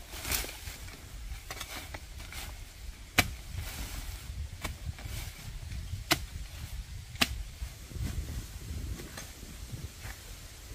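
Four sharp clicks or snaps spaced a second or so apart, over a steady low rumble.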